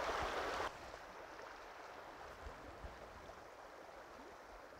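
Faint rushing of a shallow river running over rocks. Less than a second in it drops to a quieter, steady hiss.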